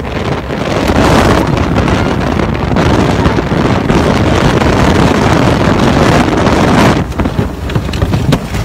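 Tornado wind striking a house, a loud rushing noise buffeting the microphone, with scattered knocks and rattles of debris. It eases about seven seconds in.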